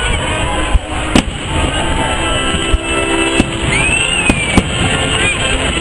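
Aerial fireworks shells bursting: about six sharp bangs at uneven intervals over a steady background rumble, the loudest about a second in.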